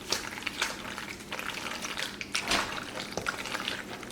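A spoon stirring penne noodles in a pot: irregular clicks and scrapes against the pot as the cayenne is mixed in.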